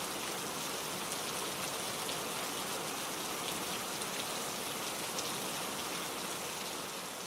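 Steady rain falling, a dense even hiss with individual raindrops ticking through it now and then.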